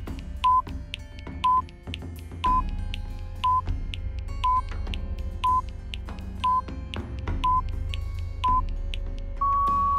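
Quiz countdown timer beeping, a short electronic beep once a second nine times, then a longer, slightly higher beep near the end marking time up, over soft background music.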